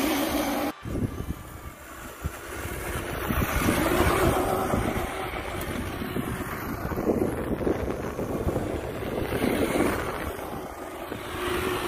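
Music cuts off abruptly under a second in, giving way to wind buffeting the microphone over a steady rushing noise, rising and falling in level.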